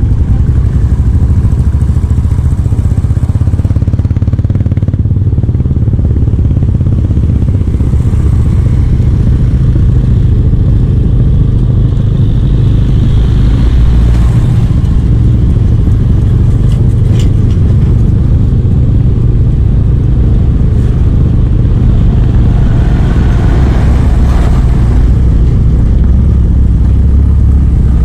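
Motorbike riding along a rough road: a steady engine note under a loud, continuous low rumble of wind and road noise on the moving rider's microphone.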